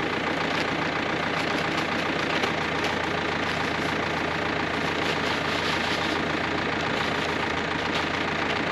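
Vehicle engine running steadily while driving along.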